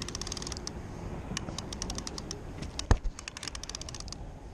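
Lever-drag conventional fishing reel ratcheting in three short runs of rapid clicks, with one sharp knock about three seconds in.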